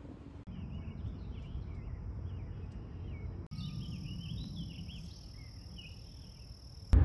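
Outdoor nature ambience: birds chirping and a steady high insect drone over a low rumble, cutting abruptly twice. Music comes in loudly at the very end.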